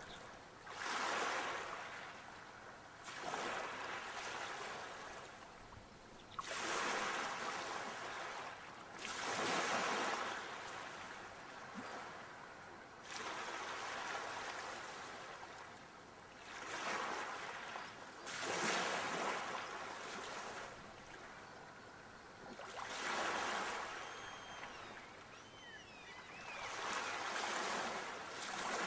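Ocean waves washing in, one surge every three seconds or so, each rising to a rushing peak and then fading.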